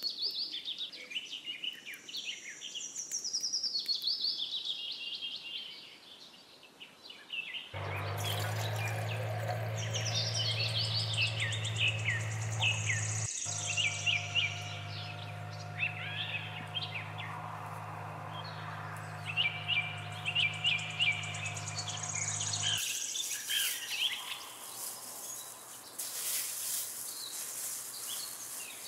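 Songbirds chirping and singing, many short calls. A steady low hum starts abruptly about eight seconds in and cuts off just as suddenly about fifteen seconds later.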